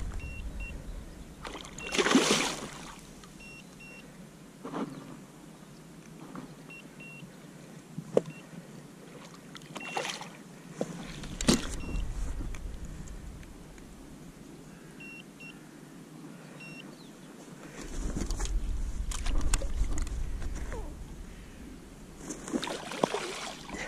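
Irregular splashes and water sloshing as a hooked pike is fought at the surface beside a float tube and steered toward a landing net in the water, with several louder bursts of splashing.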